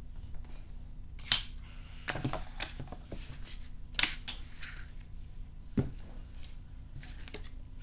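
Handling noise from a trading-card deck box and its packaging being moved on a table: four sharp clicks spread through, with softer rustles between them, over a faint steady low hum.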